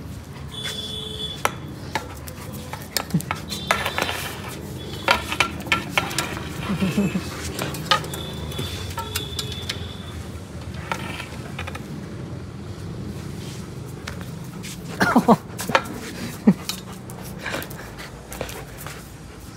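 German shepherd biting and tugging at a metal pipe: repeated clinks and knocks of teeth on metal, with a cluster of louder knocks about three-quarters of the way through.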